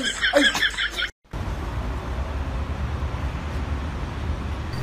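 A man's brief exclamations over music, cut off about a second in, then a steady low rumble of outdoor background noise.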